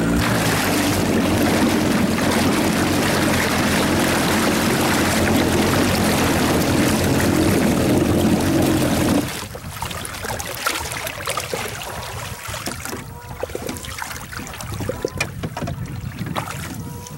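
Jet Ski engine running steadily at low speed, its jet pump churning the water, then cut off about nine seconds in. After that, water laps against the hull and there are light knocks and clicks as a jug line is pulled up by hand.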